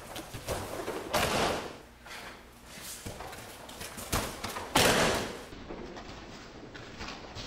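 Bodies landing on judo mats during uki-waza sacrifice throws, with breakfall slaps: one heavy impact about a second in and another about five seconds in. Between the impacts there is quieter scuffling of bare feet and cotton jackets on the mat.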